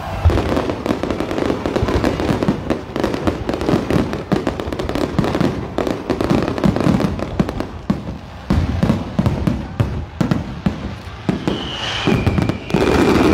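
Electronic fireworks: a dense, unbroken barrage of rapid bangs and crackles from shells bursting overhead, slackening only briefly a little past halfway before firing on.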